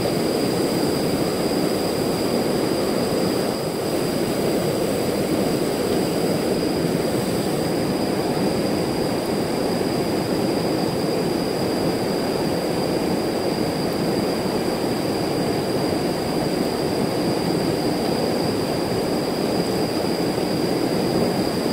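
Swift river water rushing steadily over and around rocks, an even, unbroken rush of water.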